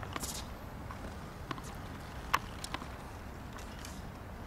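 Tennis ball and footwork on a hard court: a few short, faint taps and one sharp pop about two and a half seconds in, over a steady low hiss.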